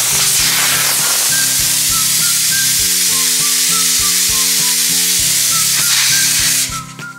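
Compressed air hissing steadily through a tyre inflator chuck into a freshly mounted tyre, cutting off abruptly near the end. Background music with a light beat plays underneath.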